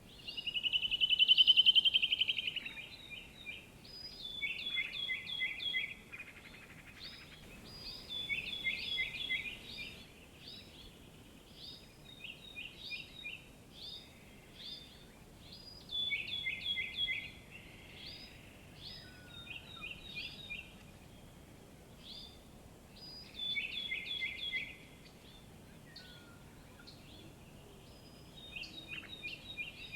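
Songbirds singing: short phrases of rapid high chirps repeated every few seconds over faint background hiss, the loudest phrase about a second or two in.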